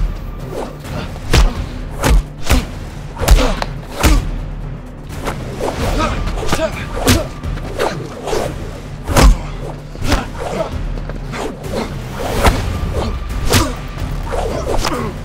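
Fight-scene punch and body-blow impacts, a rapid irregular string of sharp hits with whooshes of swung arms, over a music score with a steady low drone.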